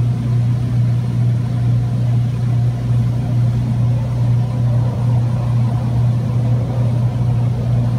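Heavy-duty wrecker truck's diesel engine running steadily, with a constant low hum, to power the boom while it holds the lifted milling machine.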